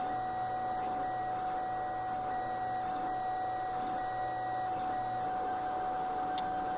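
Lulzbot TAZ 5 3D printer printing: a steady high hum runs under short whines from its stepper motors. The whines start and stop every second or so as the print head makes its moves.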